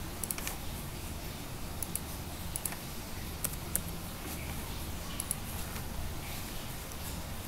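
Computer mouse and keyboard clicks, about ten sharp single clicks and close pairs spread irregularly, over a steady low hum.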